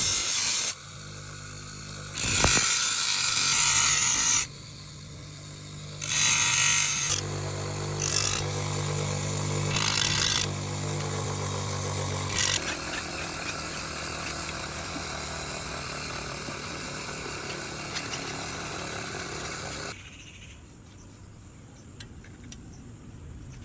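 Electric grinder working the steel blade of a rusty sickle: a steady motor hum with repeated loud grinding passes of a few seconds each. It then runs more evenly and drops quieter near the end.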